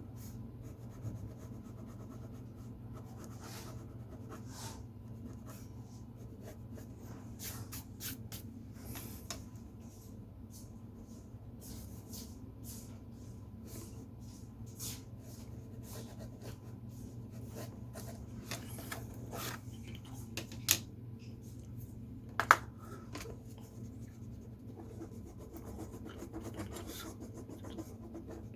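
Pen drawing on paper: short scratching and rubbing strokes over a steady low background hum, with two sharp clicks about two-thirds of the way through.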